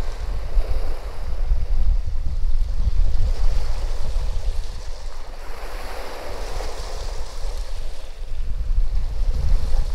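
Small sea waves washing against the shore, swelling and easing, with wind rumbling on the microphone.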